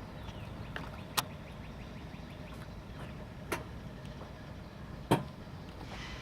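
Freight train rolling by: a steady low rumble with three sharp clacks, the loudest near the end.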